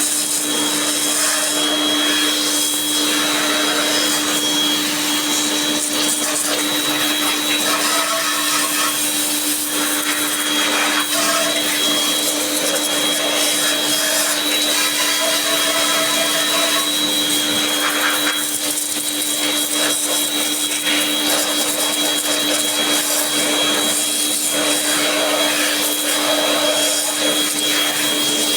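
A cleaning machine's motor running steadily with a high whine and a hiss.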